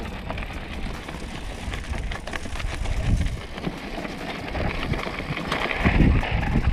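Wind buffeting the camera microphone while a mountain bike rolls over a loose rocky trail, with scattered clicks and rattles from tyres and bike on the stones. Strong gusts about three seconds in and again near the end.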